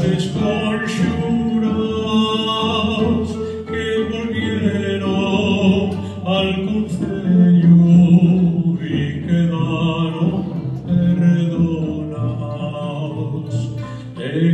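Chamber string orchestra (violins, violas, cellos, double bass) playing together with a plucked rota, a reconstructed medieval harp-lyre, while a voice sings over them.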